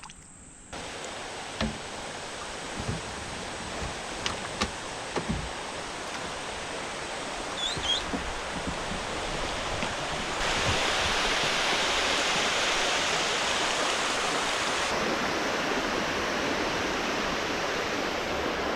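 Creek water rushing steadily, growing louder about halfway through. A few light knocks come early on, and a brief high chirp sounds near the middle.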